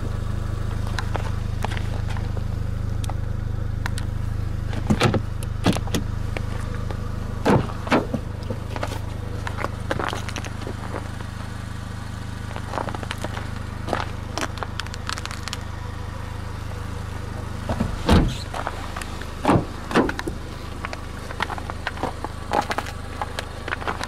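Scattered clicks and knocks of a car's body and trim being handled, over a steady low hum. The loudest knocks come about 5, 7.5, 18 and 20 seconds in.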